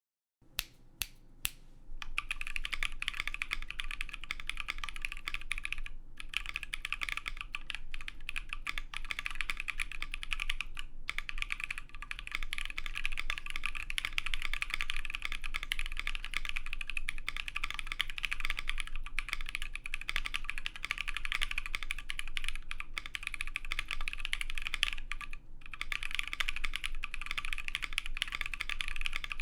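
Fast, continuous typing on a CannonKeys Bakeneko60 mechanical keyboard with lubed AEBoards Naevy tactile switches, an FR4 plate, an O-ring mount and PBT keycaps. A few single keystrokes open, then steady typing with brief pauses.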